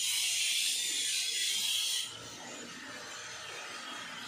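Air spray gun hissing steadily as it sprays thinned lacquer, cutting off suddenly about two seconds in when the trigger is released; a quieter rustling follows.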